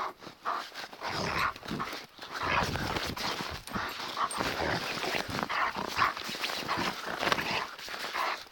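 Alaskan Malamute vocalising close to the microphone in a quick run of short sounds.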